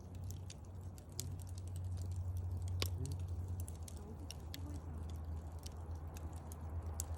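Wood fire in a fireplace crackling: irregular sharp pops and snaps over a steady low rumble, with one louder pop about three seconds in.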